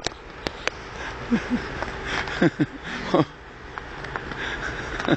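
Brief wordless vocal sounds, a few short cries or laughs falling in pitch, with a few sharp knocks from someone climbing down onto hard sea ice.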